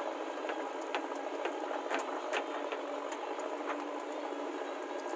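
JCB 3DX backhoe loader's diesel engine running while the backhoe bucket digs into soil, with irregular sharp clicks and knocks over the steady engine noise. It sounds thin, with no deep rumble.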